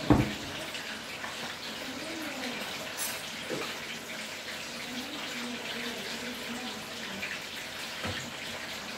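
Hot oil sizzling steadily in a frying pan on a gas stove as chicken fries, with a sharp knock just after the start and a few light clicks of a utensil.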